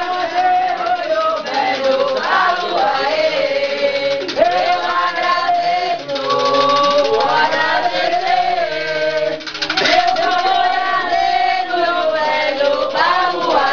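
A group of men and women singing an Umbanda chant together, holding long notes that bend up and down.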